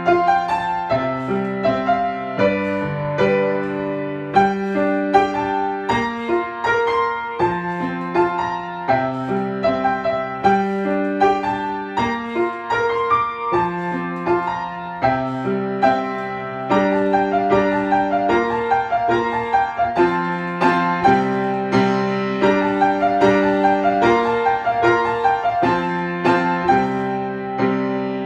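Piano music: a steady flow of held notes and chords.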